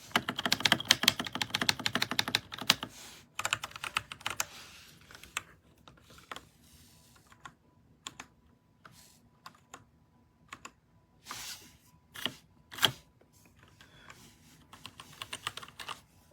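Typing on an RK Royal Kludge RK61 60% mechanical keyboard: fast, continuous key clicks for about three seconds, thinning out, then scattered single key presses with a few louder clusters.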